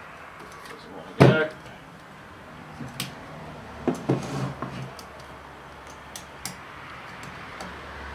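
Light metallic clicks and taps of a thin steel oil-ring rail being worked into the bottom groove of a piston, with one louder knock about a second in and a short cluster of clicks around the middle.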